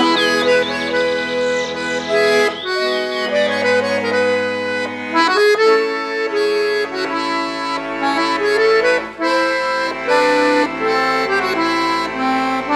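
Accordion playing the melody of an instrumental song intro over a steady bass accompaniment. Bird chirps are heard in the first second and again about three seconds in.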